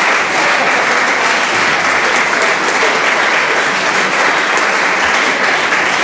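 Steady, dense applause from a crowd of people clapping.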